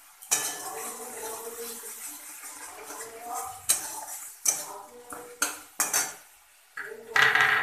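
Flat steel spatula scraping and knocking against a metal kadai while stirring a thick masala paste, with a series of sharp clanks spread irregularly through the stirring.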